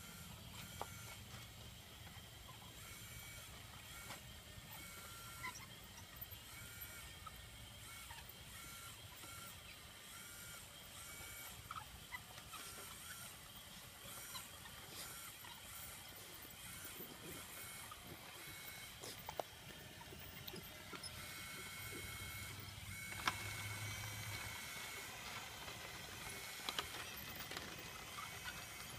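Radio-controlled model Caterpillar D11 bulldozer's electric drive and gearing whining faintly in short spells that start and stop as it pushes dirt, with scattered sharp clicks.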